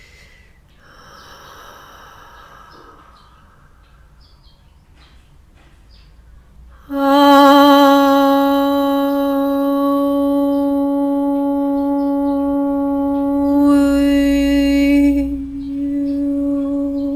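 About seven seconds in, a long held musical note starts abruptly: one steady pitch, rich in overtones and wavering slightly, sustained for about eight seconds. A softer held note follows near the end.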